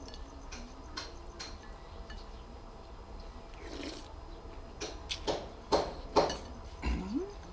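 Metal spoon clinking lightly against a ceramic bowl, then several loud slurps of soup broth from the spoon, the loudest about five to six and a half seconds in, and a short rising hum near the end.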